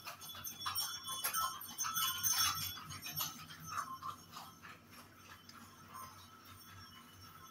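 Kittens pawing and scrabbling in a plastic tray of granular cat litter: a rapid clatter of granules clicking and rattling, loudest in the first few seconds, that thins out after about four seconds.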